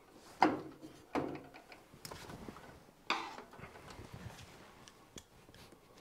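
Knocks and clicks of a bar being pushed and clipped into place on a washing machine's top frame: three sharper knocks, two close together near the start and one about three seconds in, with small handling clicks between.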